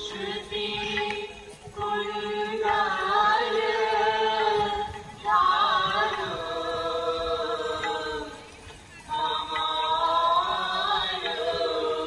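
Devotional Hindu singing in a chant-like style: voices sing phrases a few seconds long, with short breaks between them.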